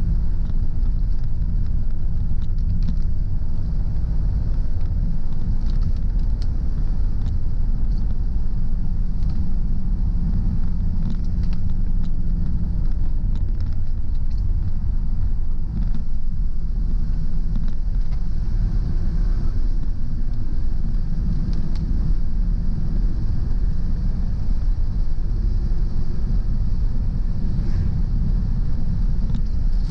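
Car driving on a rain-wet road: a steady low rumble of road and engine noise, with a faint even hiss above it.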